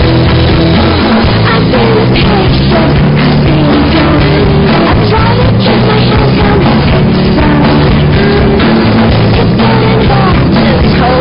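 Loud rock music with drums and a singing voice.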